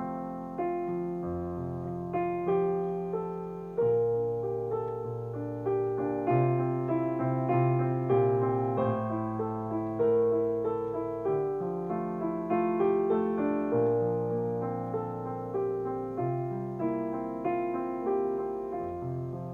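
Slow, gentle piano music: soft chords and a melody over held bass notes, each note struck and then fading, about one or two a second.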